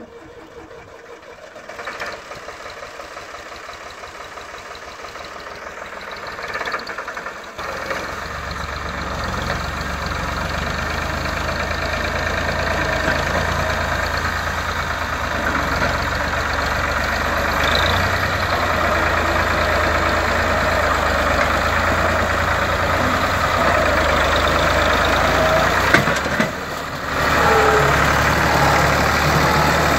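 Ford 4610 tractor's three-cylinder diesel engine pulling a trolley loaded with firewood. It runs steadily and grows louder and heavier about a quarter of the way in, then dips briefly near the end before coming back loud.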